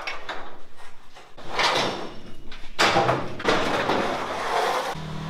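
Metal loading ramps scraping and clanking as they are slid out from under a trailer deck, in two long scrapes. Near the end an engine starts and runs steadily.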